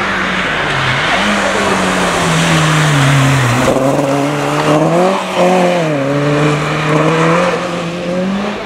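A small hatchback rally car's engine running hard through a hairpin. Its note falls and rises several times as the driver lifts, brakes and gets back on the throttle, with a brief dip about five seconds in.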